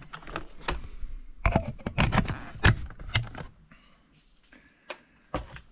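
Handling noise of a turntable's opened plastic base: a run of hard clicks, knocks and scrapes for the first three seconds or so as it is moved and set down on the bench, then quiet apart from a couple of single ticks near the end.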